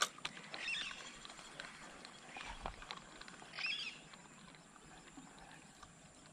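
An animal calling in short high calls, about three seconds apart, over a quiet outdoor background, with a sharp click right at the start.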